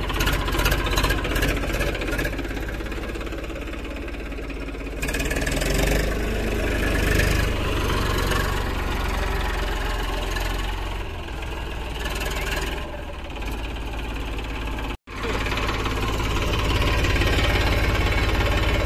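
Eicher 333 tractor's diesel engine running while the tractor is driven, with the sound rising and falling over the first half. It cuts out abruptly for a moment about fifteen seconds in, then runs on steadily at idle.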